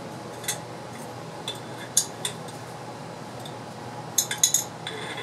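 Metal spatula clinking and scraping against the glass sample tube of a drying pistol as citric acid powder is pushed in: scattered light clinks, with a quick run of them about four seconds in.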